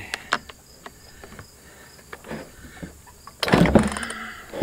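Light clicks and taps from handling a Poulan gas chainsaw that is cold and reluctant to start. About three and a half seconds in comes a louder rasping mechanical burst lasting about a second.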